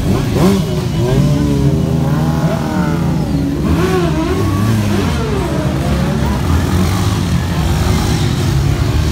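Motor vehicle engines running steadily, with people's voices calling out over them for the first several seconds.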